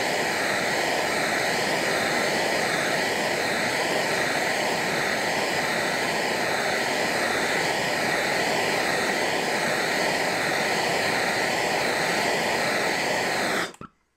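Gas torch flame running steadily with a loud rushing hiss and a faint wavering whistle, heating a split cast iron piston ring held open on a steel wedge to set its gap. The torch is shut off and the noise stops abruptly near the end.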